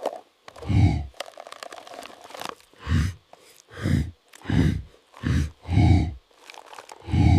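A bear grunting as it feeds: a series of about seven short, low grunts, with faint crunching between them.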